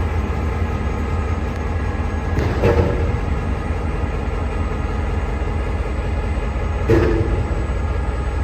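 Diesel locomotive running with a steady low rumble. Two short, sharp sounds come about two and a half and seven seconds in.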